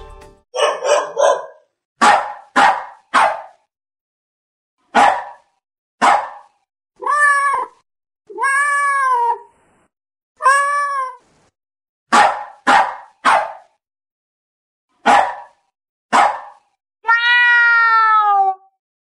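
A domestic animal vocalising: a string of short, sharp calls, some in quick threes, broken by four drawn-out, arching cries, the last one long and falling in pitch.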